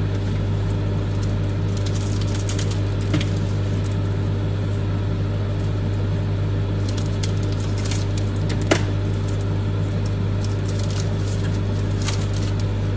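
Microwave oven running with a steady hum. A few light crinkles and a couple of sharp clicks come from chocolate pieces being unwrapped, the loudest click about two-thirds of the way through.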